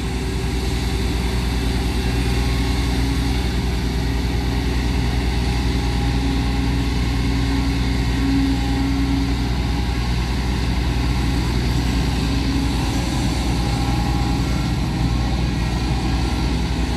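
Kobelco SK140LC excavator's diesel engine running steadily at a low, even speed.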